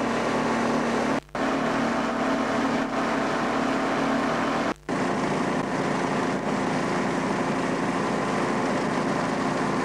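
Konig SD-570 four-cylinder two-stroke engine and propeller of a Maya ultralight running steadily in flight, mixed with wind noise. The sound drops out briefly twice, about one and five seconds in.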